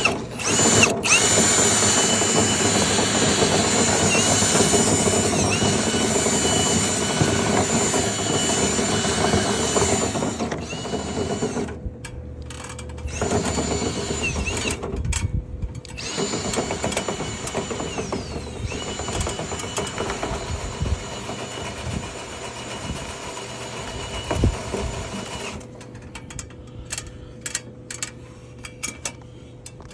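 Power drill spinning a rotary brush on rods through a dryer vent duct. Its whine dips and recovers several times, and it stops briefly about twelve and again about fifteen seconds in. Near the end it drops to a quieter level with scattered clicks.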